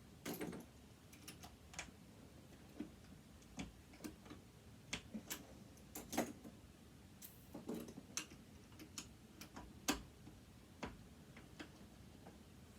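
Irregular small clicks and taps of metal tools and sewing-machine parts being handled during disassembly, a few sharper knocks among lighter ticks.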